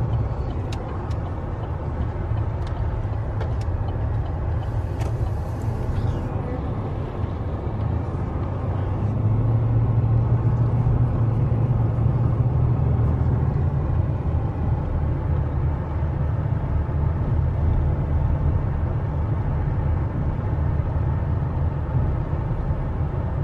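Steady low drone of engine and road noise heard from inside a moving vehicle's cabin, swelling a little about ten seconds in. A few light clicks sound in the first several seconds.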